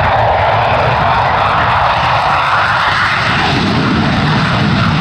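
F-16 fighter jet taking off with its afterburner lit: loud, steady jet engine noise with a deep rumble underneath and a hiss that rises slightly in pitch toward the middle.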